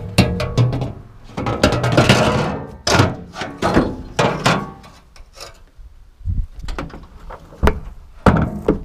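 Dirt-bike loading ramp being lifted and handled at a pickup's tailgate: an uneven run of thunks and clatters with scraping in between, the loudest knocks near the end.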